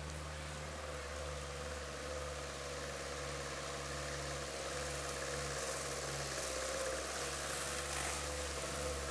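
Distant Land Rover Series diesel engine running steadily as it wades across a river, growing slightly louder near the end, with a faint hiss of water pushed ahead of it in the later seconds.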